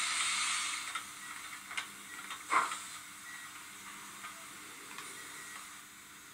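Simulated steam hiss from the sound system of an H0-scale G 8.2 model steam locomotive moving slowly: a loud hiss that fades over the first second, then softer hissing broken by a few short puffs, the strongest about two and a half seconds in.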